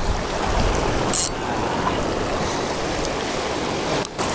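Shallow sea water washing and splashing over lava rocks at the shoreline, a steady rushing wash.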